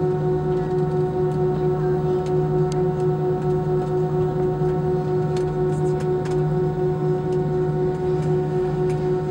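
Airbus A321 cabin during taxi: the engines at idle give a steady hum and whine made of several constant tones over a rushing background, with a few faint ticks.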